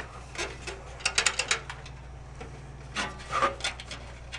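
A DVD drive scraping and clicking against a computer case's drive bay as it is pushed in and catches, in three short bursts, over a steady low hum.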